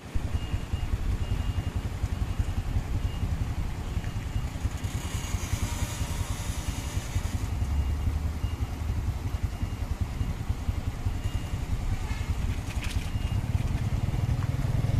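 MAN truck's diesel engine labouring steadily as the truck climbs a steep hill with a low-bed trailer, growing louder near the end as it comes closer. A hiss lasting about two seconds comes about five seconds in.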